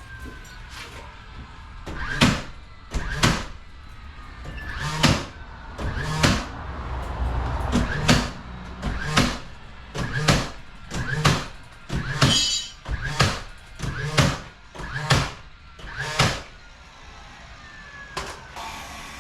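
A run of sharp knocks or strikes, about one a second, over a steady low rumble.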